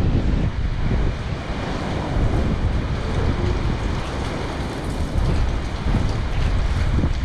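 Strong wind buffeting the microphone, a heavy uneven rumble over a steady rushing hiss.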